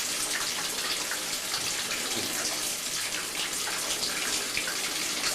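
A tap running in a steady stream, splashing into water in a basin, with small irregular splashes over it.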